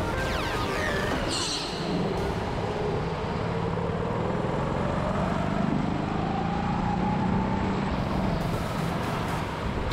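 Go-kart motor whining from onboard the kart, its pitch rising and falling as the speed changes, over steady tyre and road noise. A brief high falling sweep comes about a second in.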